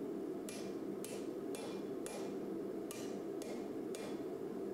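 Blacksmith's hand hammer striking a red-hot spring-steel knife blank on an anvil: seven sharp blows about two a second, with a short pause after the fourth, each with a brief bright ring, over a steady low hum.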